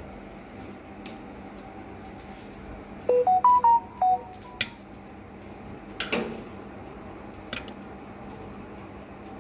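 A quick run of about eight short electronic beeps at a few different pitches, about three seconds in. Then a few metal clicks and a louder clack from the cake pan and pan lifter being handled in the open toaster oven, over a steady low hum.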